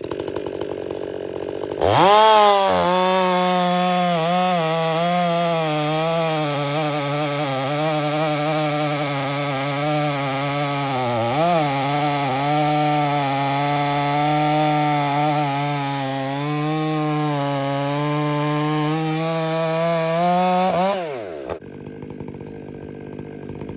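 Two-stroke chainsaw throttled up to full speed and held there through a long cut, its pitch sagging slightly under load and dipping once near the middle. Near the end it is let off and the engine speed falls away.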